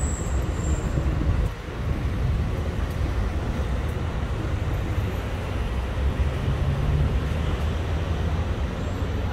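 Steady low hum and rush of kitchen machinery and extractor ventilation in a kebab shop, dipping briefly about a second and a half in.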